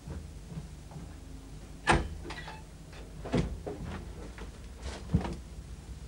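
A door and coat hangers being handled in a small room: a sharp knock about two seconds in, then two more knocks and a few smaller clicks and rattles.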